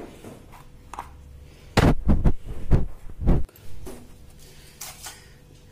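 A quick series of about five dull, low thumps over a second and a half, starting about two seconds in, with a few faint clicks around them.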